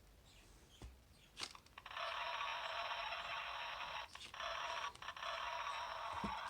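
Electronic jackhammer sound effect played by a pop-up book's sound chip through its small speaker, set off by pulling the book's tab. A tinny, rattling noise starts about two seconds in, after a couple of light paper clicks, and breaks off briefly twice.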